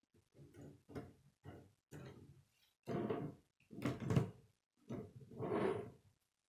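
Plastic K'nex pieces of a model rotary phone knocking and rattling in a series of short handling noises as the handset is lifted and set back on its cradle. The loudest clack comes about four seconds in.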